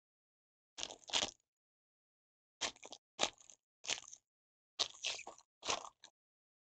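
Foil wrapper of a Panini Prizm Baseball hobby pack being torn open and crinkled by hand, in about six short crackling rips.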